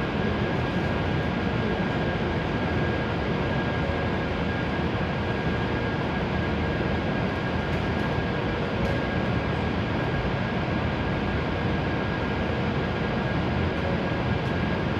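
Steady whirring hum of a standing E7 series Shinkansen's onboard fans and equipment, with a thin high whine held over it.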